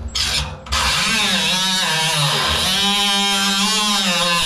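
Cordless Milwaukee Fuel cut-off tool spinning up under a second in and cutting metal, a steady whine whose pitch dips and recovers as the wheel bites.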